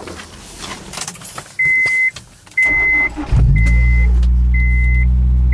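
A car's warning chime beeps about once a second as the Honda S2000's four-cylinder engine cranks briefly and catches about three seconds in, then idles steadily and loudly under the continuing chime. Before that there are small clicks and rustling.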